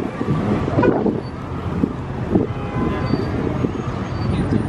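Low, uneven rumble of car engines running.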